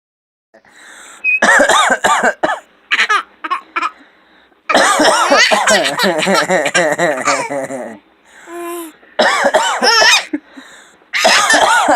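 A man coughing and a baby laughing in reply, in several loud bouts of laughter separated by short pauses, the longest lasting about three seconds.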